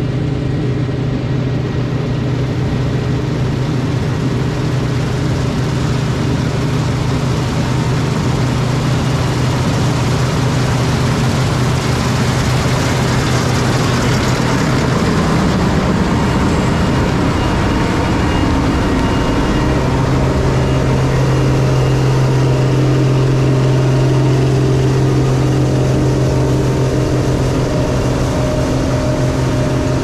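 Claas Mega Dominator 204 combine harvester running steadily under load while threshing barley: a deep, even engine hum under the dense rushing clatter of the threshing and straw-handling machinery. The engine note shifts a little about two-thirds of the way through.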